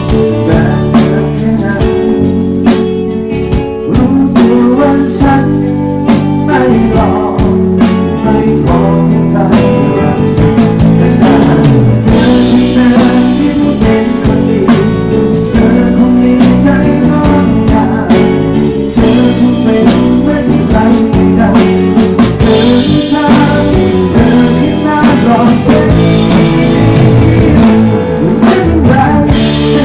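A live band playing through a PA system at a sound check: guitar over a steady drum beat.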